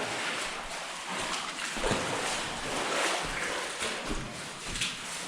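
Footsteps trudging and splashing through shallow water and mud, with irregular sloshing steps.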